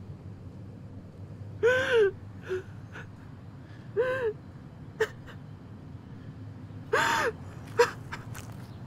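A young man sobbing: three drawn-out sobs that rise and fall in pitch, about two, four and seven seconds in, with short gasping breaths between them.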